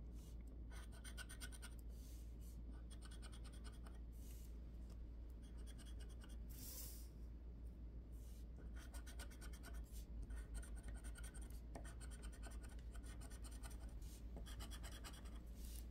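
Scratch-off lottery ticket being scratched with a small metal-tipped scratcher: short runs of quick, fine scraping strokes across the card's coating, with brief pauses between runs.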